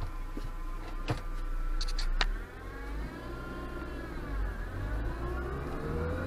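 Ford StreetKa's 1.6-litre four-cylinder engine heard from inside the cabin as the car pulls away, with a couple of sharp clicks in the first two seconds around a gear change. The engine note then dips and rises again, climbing steadily near the end as the car accelerates.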